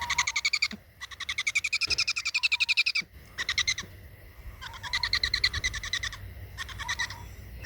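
An owl giving rapid chittering calls in five short bouts, each a fast run of about ten notes a second. The longest bout, about two seconds, rises and then falls slightly in pitch.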